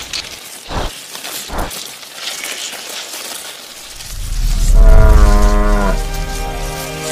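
A cow mooing: one long, low call with a strong bottom end, starting about four seconds in and lasting under two seconds. Two short swishes come before it.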